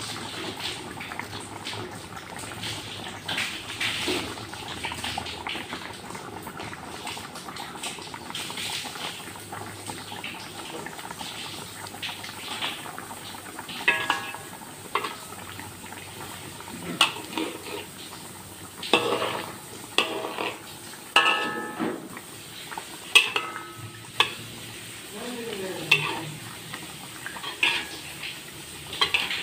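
A pot of asam pedas stew simmering and bubbling. From about halfway, a utensil stirs it and knocks against the pot in a string of sharp clinks that ring briefly.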